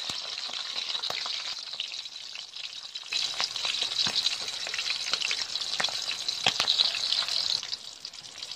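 Whole short mackerel sizzling and crackling in hot oil in a wok, louder from about three seconds in and easing near the end. A metal spatula knocks against the wok a couple of times.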